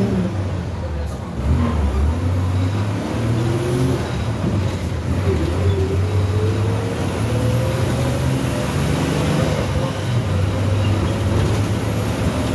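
Modasa Titán Urbano bus's MWM 6.10 six-cylinder engine, converted to run on natural gas (CNG), running under load. There is a brief dip about a second and a half in, then a whine that rises steadily in pitch as the bus gathers speed.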